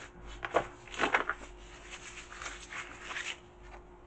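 Paper and plastic packaging rustling and crinkling as a CCTV camera is lifted out of a cardboard box and unwrapped, with a couple of sharper crackles about half a second and a second in.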